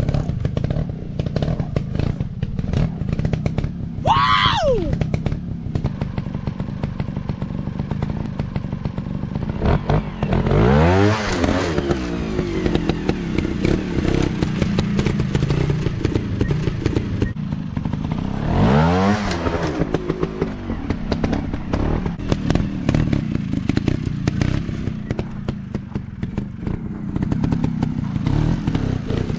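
Off-road dirt bike engines running and revving, with the pitch sweeping up hard about ten and nineteen seconds in, among many short clattering knocks.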